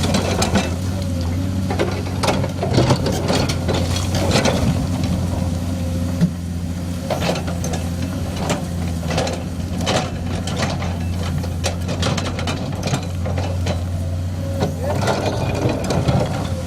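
Komatsu hydraulic excavator's diesel engine running steadily, with frequent sharp clacks and rattles of rock as it digs.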